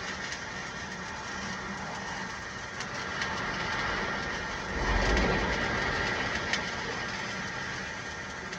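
Electric welding arc crackling steadily while a bead is run on flat plate, with a constant machine hum beneath. The sound swells louder for about a second midway.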